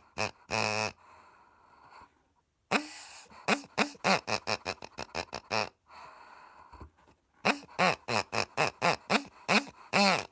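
Rubber pig squeaky toy squeezed again and again, its grunter giving short oinking grunts that bend up and then down in pitch. They come in quick runs of about four a second, with pauses of a second or two between the runs.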